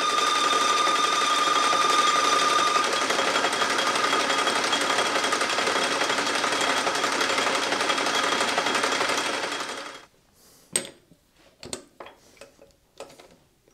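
Metal lathe running with noisy gears while its cutting tool feeds into the spinning metal part, a loud steady mechanical din with a few thin high tones. It cuts off about ten seconds in, followed by a few faint clicks and knocks.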